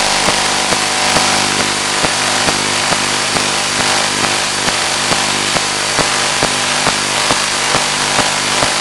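Steady hiss and constant hum from an analog FPV video receiver's audio, with short clicks about twice a second.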